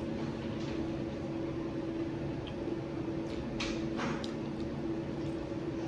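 Steady low appliance hum in a small room, with a few short eating noises (smacks and clicks) a little past halfway as a forkful of food goes into the mouth.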